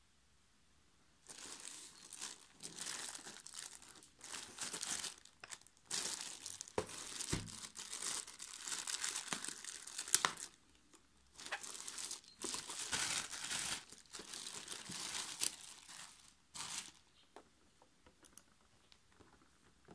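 Thin clear plastic bag crinkling and rustling in irregular bursts as it is handled and pulled open from around a boxed hair clipper, with one dull knock about seven seconds in. The crinkling stops about three seconds before the end.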